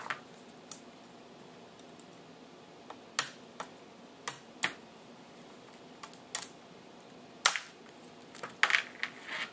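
Claw hammer tapping a pin held against the front-sight pin of a Daisy 1903 Springfield replica drill rifle, driving the pin out: about a dozen light, sharp, uneven taps, the loudest a little past the middle.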